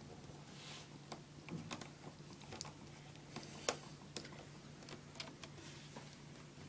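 Faint, irregular small clicks and ticks of a screwdriver turning a tiny screw out of an iMac's metal RAM access panel, over a low steady hum.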